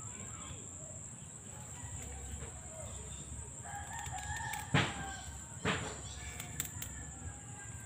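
A rooster crowing in the background, one call of about a second midway through. Then two sharp snaps about a second apart as the dry spinach seed stalks are cut.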